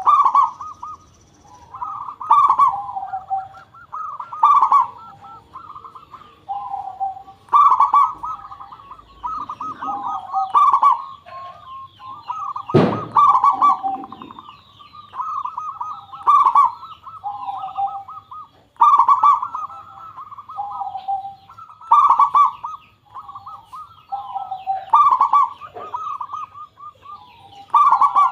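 Zebra dove (perkutut) song: trilled, cooing phrases repeated about every two to three seconds. There is a single sharp knock about 13 seconds in.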